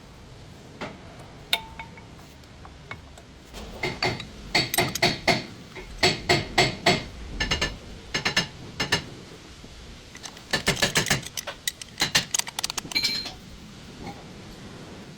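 Metal tools and parts clinking and tapping against each other, each strike ringing briefly, in two quick runs of many hits.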